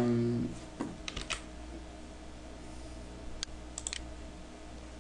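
A handful of sharp clicks from a computer mouse and keyboard, in small clusters about a second in and again between three and four seconds, over a faint steady hum.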